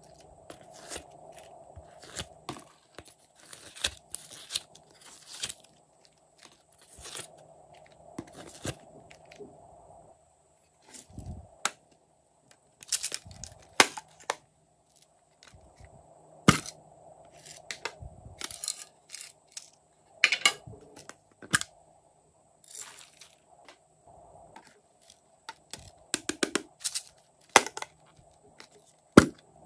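Small plastic toy cases being handled and squeezed: irregular plastic clicks, taps and crunchy scrapes, some sharper than others.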